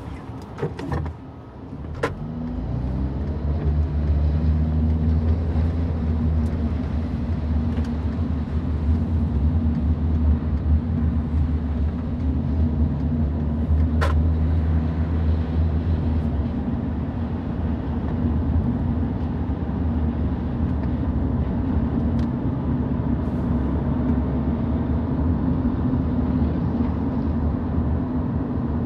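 Car driving on rain-wet city streets. A low steady engine and tyre rumble starts about two seconds in and rises as the car pulls away, then holds steady over a faint hiss, with a few sharp clicks near the start and one about halfway.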